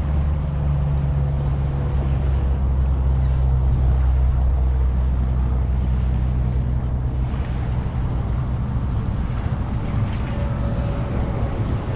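Low, steady engine drone that weakens after about seven seconds, over small waves lapping the shore.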